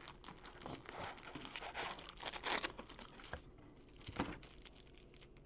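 Foil trading card packs crinkling and rustling as they are pulled out of a cardboard retail box and handled. The handling quietens after about three and a half seconds, and there is one sharper tap soon after.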